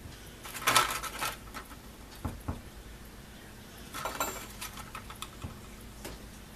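Small metal parts of a rotary hammer's front housing clinking and clicking as they are handled and fitted by hand: a rattly cluster about a second in, two sharp clicks, another cluster about four seconds in, then a few light ticks.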